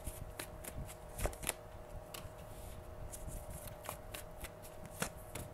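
A deck of tarot cards being shuffled by hand: soft, irregular snaps and rustles of the cards.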